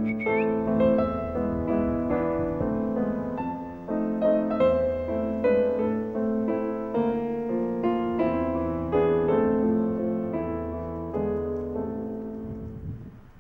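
Background piano music, a slow keyboard melody, fading out near the end.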